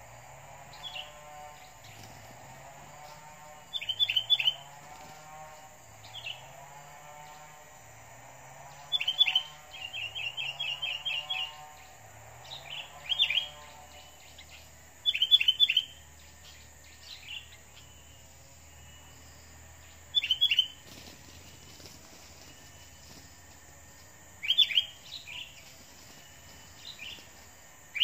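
Sooty-headed bulbuls calling: short clusters of sharp chirps every few seconds, with one quicker run of evenly repeated notes about ten seconds in.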